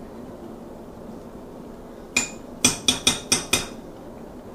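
A spatula rapped against the rim of a glass baking dish to knock off cornbread batter: one sharp knock about two seconds in, then a quick run of five knocks, each with a short ring.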